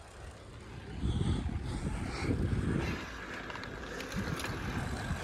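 Wind buffeting the microphone of a camera on a moving bicycle: a gusty low rumble that is quieter for about the first second, then stronger.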